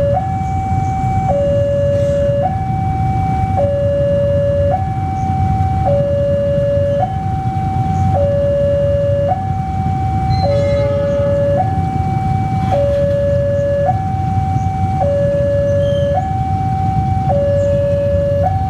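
Level-crossing warning alarm sounding a two-tone signal: a high tone and a low tone alternating, each held about a second, repeating evenly, over a steady low rumble.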